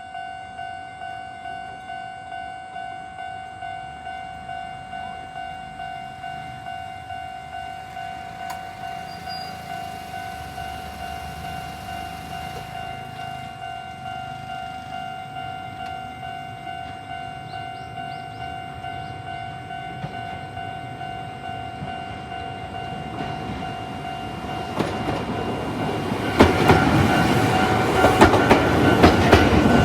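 Railway level-crossing warning alarm ringing, a steady repeating ding about twice a second. Near the end a train comes up and passes over the crossing, louder, with its wheels clacking over the rail joints.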